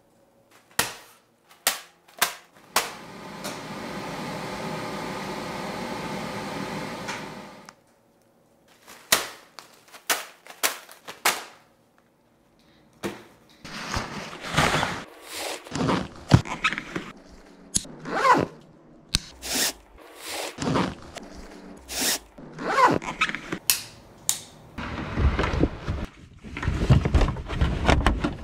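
Gear-handling sounds: a few sharp clicks, a steady machine whir for about five seconds, then from about halfway on a dense run of rustling, thumps and clatter as a backpack is packed.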